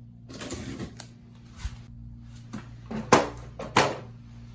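Clicks and knocks from handling a new bathroom exhaust fan housing and its parts, with two sharp knocks, the loudest, near the end, over a steady low hum.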